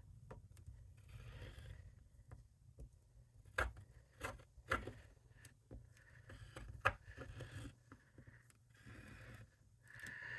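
Paper being handled and worked on a craft table: soft scraping and rustling with a few light sharp taps.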